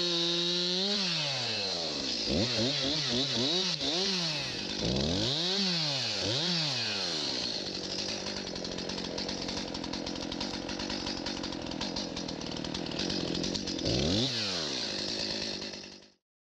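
Chainsaw engine held at high revs, then revved down and up several times in quick succession, settling into a steadier run with one more rev-up near the end before the sound cuts off abruptly.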